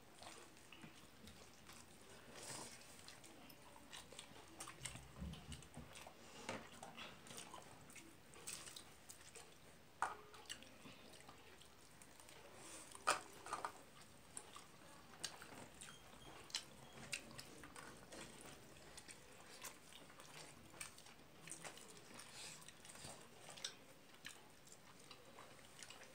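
Soft chewing and mouth smacking of a person eating rice and egg curry with her fingers, with scattered small clicks. The two sharpest come about ten and thirteen seconds in.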